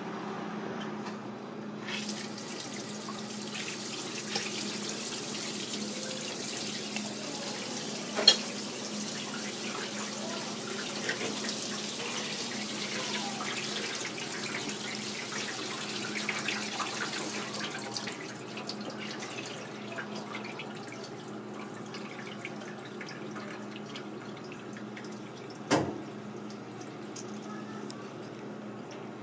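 Water running from a kitchen sink spray tap onto a cuttlefish on a plastic cutting board. It starts about two seconds in and shuts off about eighteen seconds in. A sharp knock comes near eight seconds and another about twenty-six seconds in, over a steady low hum.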